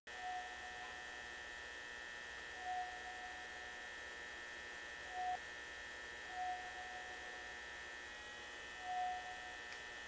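Steady electrical hum of fluorescent ceiling lights, with a faint short higher tone sounding four times.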